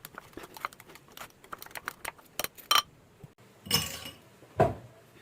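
Scattered light clicks and clinks of kitchen utensils and dishes being handled, with two louder knocks near the end.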